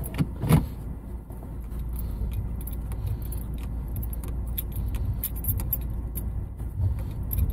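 Inside a Ford's cabin while it drives slowly over a rough dirt road: a steady low rumble from the engine and tyres, with many small clicks and rattles from loose items and interior trim, and a couple of sharper knocks in the first half second.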